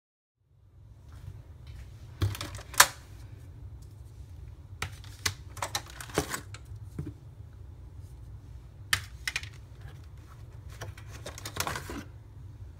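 Hard plastic toy track pieces and a cardboard box being handled during unpacking: irregular clicks and knocks, a few in quick clusters, over a steady low hum.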